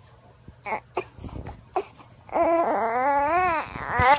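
A 7-week-old baby crying. After a quiet start, two loud wails come in about halfway through, each rising and falling in pitch, the second running on. The crying of a sleepy, fussing infant.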